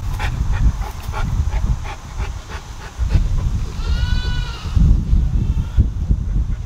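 A St. Bernard panting in quick breaths for the first couple of seconds, then, about four seconds in, a Nigerian Dwarf goat bleats once, a single call about a second long that rises and falls, over heavy low rumbling.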